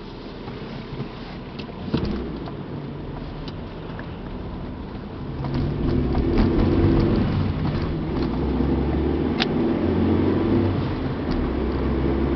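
A car moving off, its engine and road noise swelling about five and a half seconds in, with scattered clicks and knocks.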